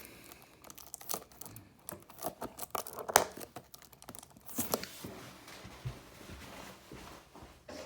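Plastic shrink wrap on a cardboard trading-card blaster box being picked at and torn by hand, in scattered scratches, clicks and crinkles with a few sharper tears.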